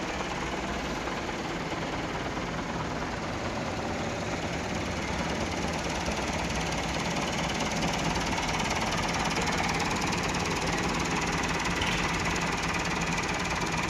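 A tractor's diesel engine idling steadily with a rough, knocking chug, under a constant hiss.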